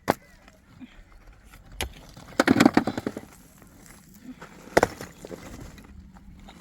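Sharp knocks with a burst of clattering about two and a half seconds in, and a single loud knock near the five-second mark.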